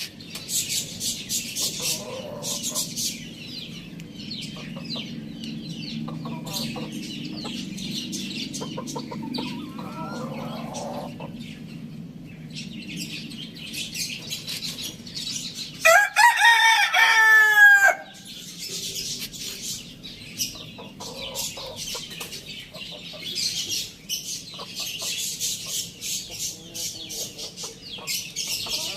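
Domestic chickens clucking now and then over a steady high patter of ticks and chirps. About two-thirds of the way through, a rooster crows once, loudly, for about two seconds.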